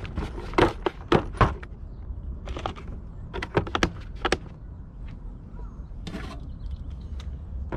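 Hand tools and car parts being handled: sharp, irregular clicks and knocks, with a quick run of them about halfway through and a short scraping burst near the end.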